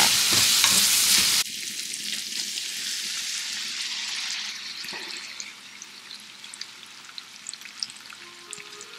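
Ground beef, onions and green peppers sizzling loudly in a frying pan as a wooden spoon stirs and scrapes them. About a second and a half in, the sound drops sharply to a quieter sizzle with faint crackles, which fades as tomato sauce from a jar is poured over the meat.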